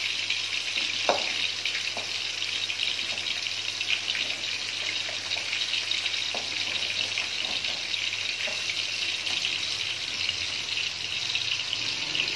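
Battered banana fritters sizzling steadily in hot oil in an aluminium wok. A metal spatula gives a few light clinks against the pan as the pieces are turned: a sharper one about a second in, then near 2 s and 6 s.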